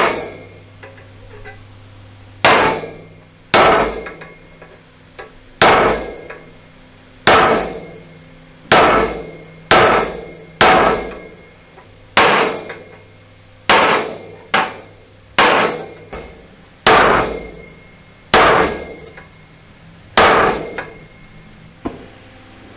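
Hammer blows on a steel punch held against a red-hot rivet, driving it out of an armour-plate tank hatch: about fifteen hard metallic strikes, one every second or so, each ringing briefly.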